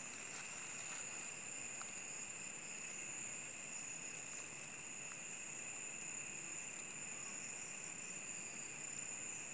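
Night insects, crickets, trilling steadily at two high pitches, one very high and one lower.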